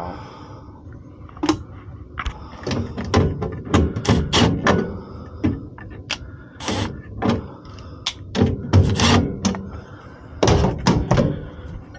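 Irregular knocks, clicks and clatter of parts being handled in a gas furnace cabinet as its control board is taken out.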